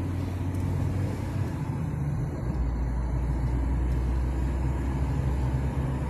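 Car engine and tyre noise heard from inside the cabin while driving: a steady low rumble that grows stronger and deeper about two and a half seconds in.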